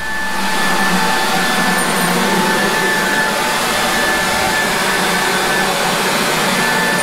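Handheld electric leaf blower running steadily: a loud, even rush of air with a high whine from the motor and fan.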